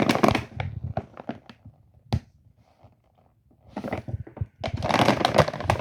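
A bulk bag of aquarium gravel, used as track ballast, being handled. The grains crunch and rustle in two bursts, one at the start and a longer one near the end, with a single sharp click between them.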